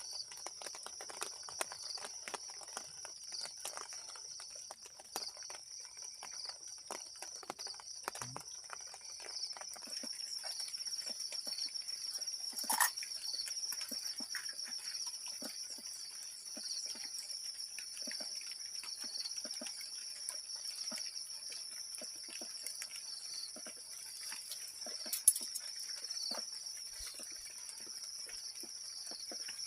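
A steady, high-pitched chorus of insects droning without a break, with scattered faint ticks and two sharper clicks, the second the loudest moment.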